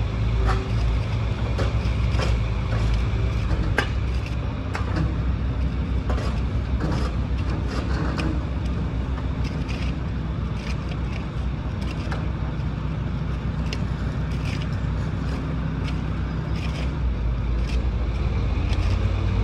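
Excavator's diesel engine running, its pitch shifting a little now and then, with scattered sharp clicks and clanks.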